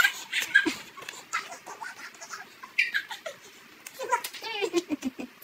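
A child giggling and making short, high-pitched vocal sounds, one sliding down in pitch near the end, over light taps and scrapes of a ballpoint pen on paper.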